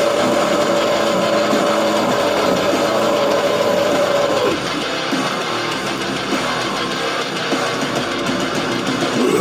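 Heavy metal track with distorted electric guitars and bass. Over it a long held note ends with a downward slide about four and a half seconds in, and a new note rises near the end.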